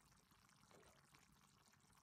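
Very faint simmering of pork and long beans in broth in a wok: a soft, even bubbling hiss, barely above silence.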